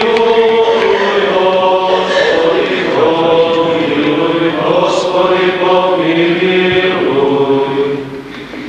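Several voices chanting a Byzantine-rite church hymn together in long, held notes. The singing fades near the end.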